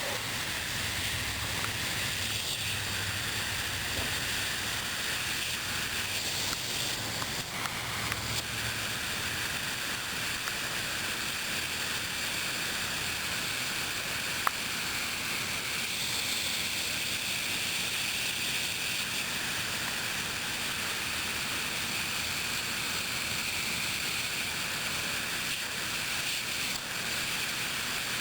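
Hunter MP Rotator 2000 sprinkler nozzle spraying water, a steady hiss of rotating streams falling on the lawn. A single sharp click about halfway through.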